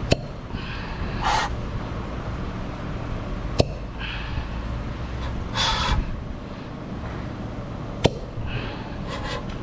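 Air rushing in and out of a cylinder of a Mazda BT-50 2.2 diesel engine as the engine is turned over by hand with a palm over the cylinder, a manual compression check. The three short hissing puffs are each preceded by a sharp click, and the suction and push on the hand show strong diesel compression.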